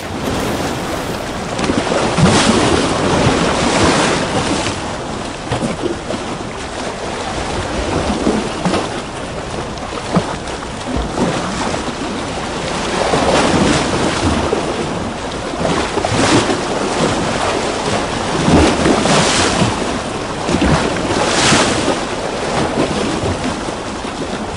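Recorded ocean surf ambience: a steady rush of waves swelling and washing every two to three seconds.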